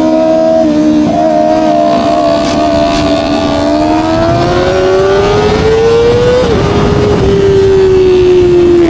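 Kawasaki ZX-25R SE's 250 cc inline-four engine running at high revs through an Austin Racing aftermarket exhaust on the move. The engine note holds steady, climbs slowly, drops suddenly with a gear change about six and a half seconds in, then eases slowly down.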